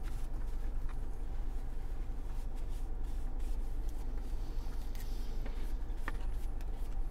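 Light rustling and crackling of a paper food box and wrapper while a chicken sandwich is handled and eaten, with a few short clicks, over a steady low hum in the car.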